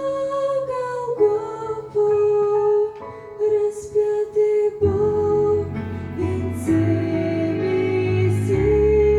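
Slow instrumental music with a held, sustained melody line; a low bass part comes in about halfway through.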